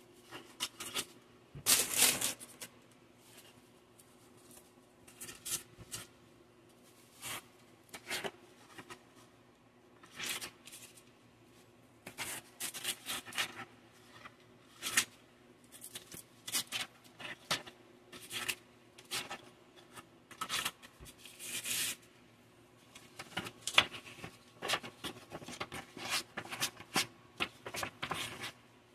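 Sheets of paper-backed wet/dry aluminium oxide sandpaper being handled and flipped through by gloved hands: irregular dry rustles and flaps of the stiff paper, the loudest about two seconds in.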